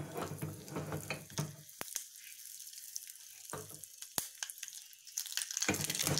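Mustard seeds and asafoetida frying in hot oil in a small tempering pan: a steady sizzle with scattered sharp popping crackles from the seeds. The sizzle grows louder near the end.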